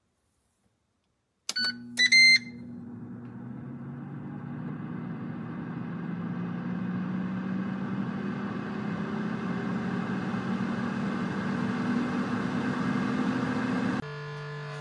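Ninja AF161 Max XL air fryer beeping twice as it is started, then its fan running with a steady hum that slowly rises in pitch and loudness as it comes up to speed. Near the end the hum switches suddenly to a different, lower hum.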